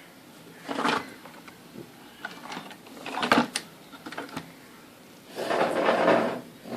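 Circuit boards and tools handled on a workbench: three short bouts of scraping and shuffling with a few small clicks and knocks between them, the last bout the longest.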